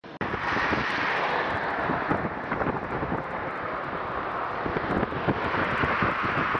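Wind buffeting the microphone: a steady rushing hiss with irregular low thumps.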